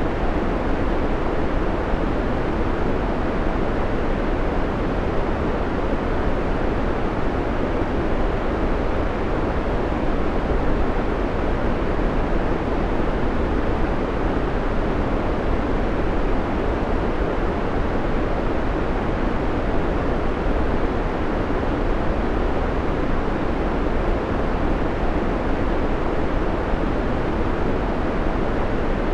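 Steady synthetic background noise, even and unchanging, weighted toward the low end like pink or brown noise rather than hissy white noise.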